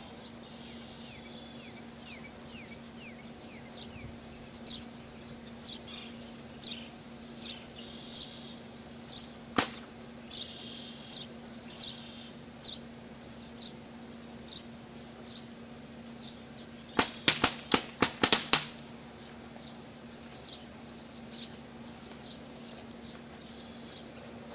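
Paintball marker firing: a single sharp pop about ten seconds in, then a quick string of about seven pops some seven seconds later. Faint short bird chirps and a steady low hum run underneath.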